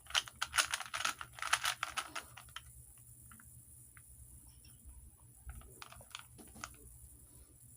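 Rubik's cube being turned fast by hand: quick runs of plastic clicks and rattles from the layers, thinning out after about two and a half seconds to a few scattered clicks.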